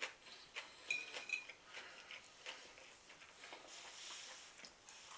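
Faint clinks and scrapes of a metal fork against a dinner plate as food is picked up, with one short ringing clink about a second in.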